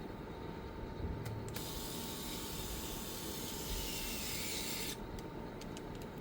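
A steady spraying hiss lasting about three seconds, starting about a second and a half in and cutting off sharply.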